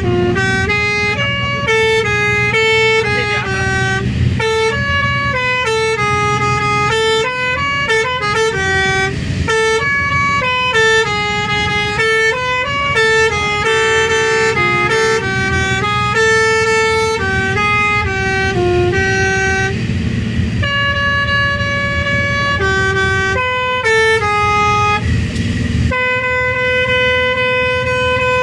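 Bus telolet horn, a set of tuned electric horns playing a melody of stepped notes that change pitch every fraction of a second, with a low engine rumble beneath.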